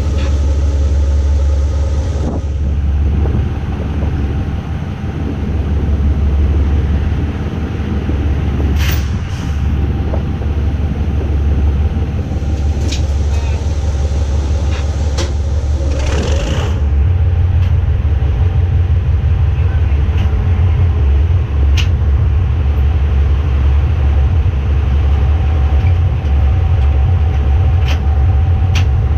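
GE diesel-electric shunting locomotive running with a low steady engine rumble as it moves. Scattered sharp clanks come through, and there are short bursts of hiss about nine and sixteen seconds in.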